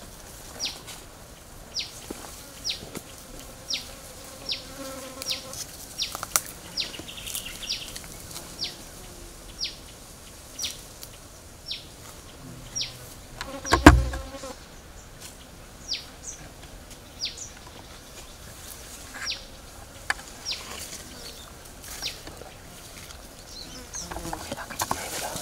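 A forest animal's short, high call, sweeping downward and repeated about once a second, with a single loud thump about halfway through.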